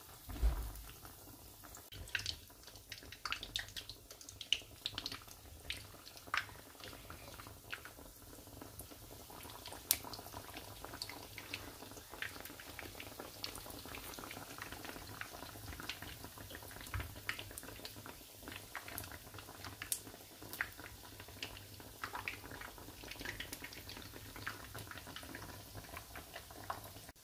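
Hot oil sizzling and crackling in a frying pan as pieces of yogurt dough deep-fry, with scattered sharp pops throughout and a single low knock about half a second in.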